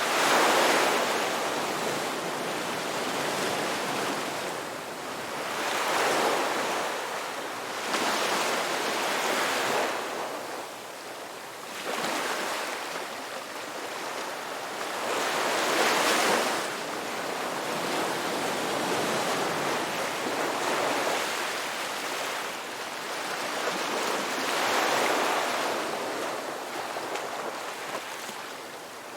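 Ocean waves breaking in repeated surges a few seconds apart, each swelling into a loud wash and falling back to a softer hiss.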